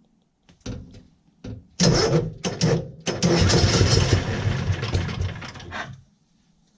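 A few clicks, then the starter cranks the COOT UTV's engine on a cold start with the choke set for about four seconds. It almost catches but does not keep running, and the cranking stops abruptly near the end.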